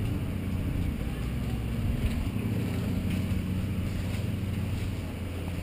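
Small vehicle engine running steadily as it travels along a dirt trail, with an even low hum.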